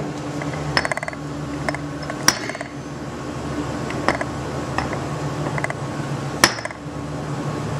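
Scattered sharp metal clicks and clinks as the sliding sheave of a Nissan RE0F10A/JF011E CVT drive pulley (variator), converted from balls to pins, is pushed and worked by hand. The strongest click comes about two seconds in and another near the end, over a steady low hum.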